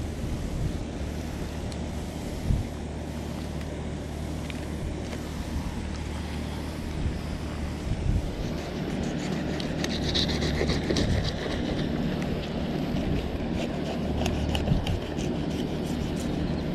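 Fillet knife working through a sheepshead on a wooden board: short knocks and scrapes of the blade, busiest in the second half, over a steady low hum and wind noise on the microphone.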